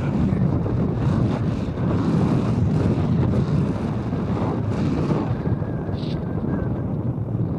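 Wind buffeting the camera microphone: a steady, heavy low rumble of noise.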